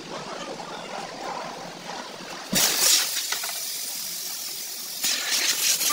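Compressed air hissing at a tyre changer: a sudden loud hiss starts about two and a half seconds in and lasts a couple of seconds, then a second shorter hiss comes near the end.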